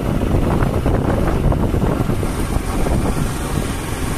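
A motorcycle riding along a road, with wind rushing and buffeting over the microphone and the engine running underneath.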